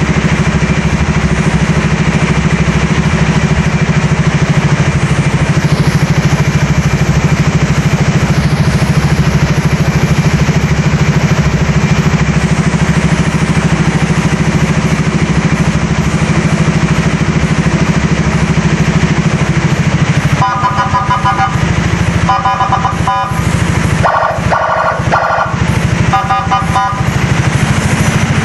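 Yamaha XMAX scooter engine running steadily. About 20 seconds in, a custom police-style siren fitted to the scooter starts up with several short runs of rapid, choppy horn tones.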